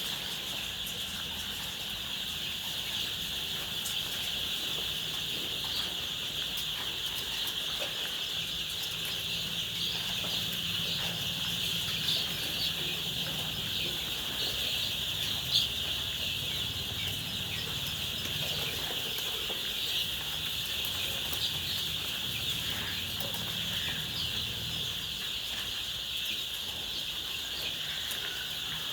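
A flock of chickens clucking, with scattered short clicks and a steady high-pitched hiss throughout.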